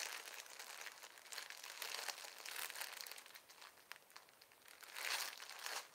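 Clear plastic packaging bag crinkling as it is handled and turned over, with a louder stretch of crinkling near the end.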